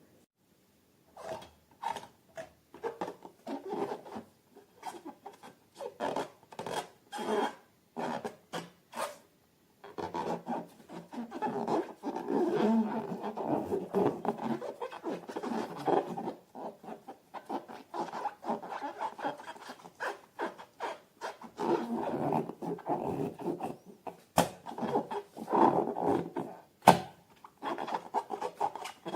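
Slime and rubber balloons being worked by hand: irregular squishing and rubbing sounds in short bursts, with a few sharp clicks near the end.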